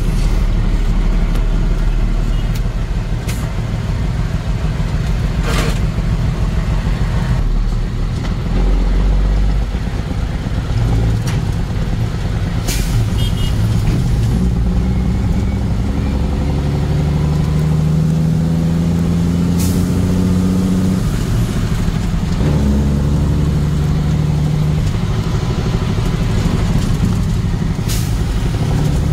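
Vehicle engine and road noise while driving, the engine's pitch climbing and then dropping as it runs through the gears, with a handful of short sharp knocks.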